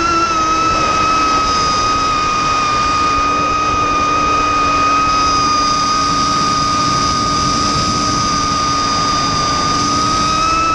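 Vortex 250 Pro racing quadcopter's brushless motors and four-blade 5-inch HQ propellers whining in flight on a 4S battery, heard close from on board. The pitch holds nearly steady with small rises and dips as the throttle shifts.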